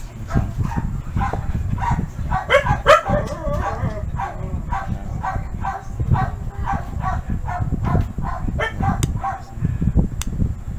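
An animal calling in short, repeated pitched calls, about three a second, with a denser flurry of calls about three seconds in, over a low rumble. Two sharp clicks come near the end.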